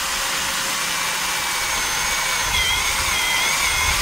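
HOTO 12V brushless drill boring through a slotted metal angle with a metal drill bit: a steady grinding hiss of the bit cutting metal, with a wavering high squeal joining about two and a half seconds in.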